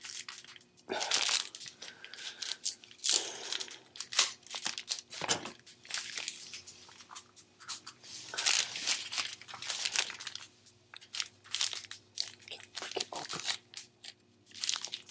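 Thin plastic candy wrapper crinkling and tearing as a long gummy-candy packet is torn open and handled, in irregular short bursts of rustling and clicks.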